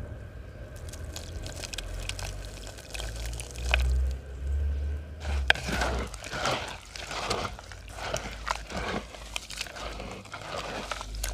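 Dry cement crumbling into water: scattered crackles over a low rumble at first, then from about five seconds in a dense run of crackling and fizzing.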